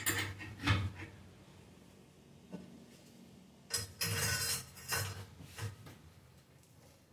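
Steel tools clanking against each other: a 10-inch adjustable wrench gripping iron in a bench vise, with a steel bar slid over its handle for leverage. Two sharp clanks at the start, then about four seconds in a longer stretch of metal scraping and clattering, followed by a few lighter knocks.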